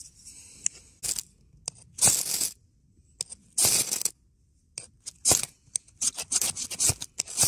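Knife spine scraped hard down a ferrocerium rod, striking sparks onto birch bark scrapings and fatwood shavings. Separate scrapes: two long strokes of about half a second in the first half, then a quicker run of short strokes near the end.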